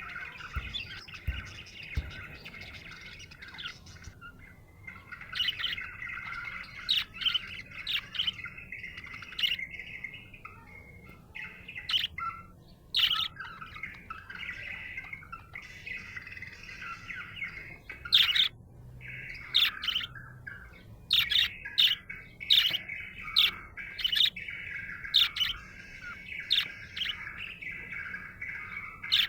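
Budgerigar warbling and chattering: a near-continuous stream of song, punctuated by short, sharp chirps that come thickest in the second half.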